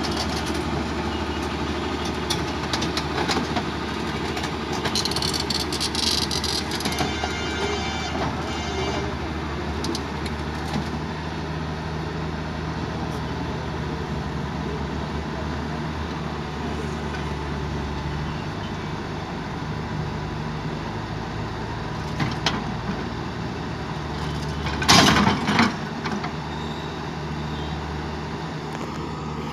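L&T-Komatsu crawler excavator's diesel engine running steadily as the machine moves its tracks back down a flatbed lorry's deck, with scattered knocks. About 25 seconds in there is a loud clattering burst.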